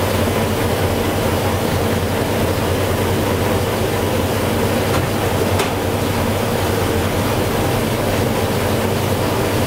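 Steady, loud machine drone with a deep hum, unchanging throughout, and one brief click about five and a half seconds in.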